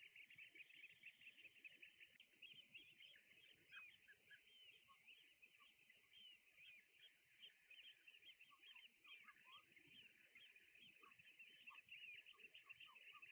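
Faint chatter of a flock of water birds: many short, overlapping chirps and calls run on, with scattered lower calls joining from about four seconds in.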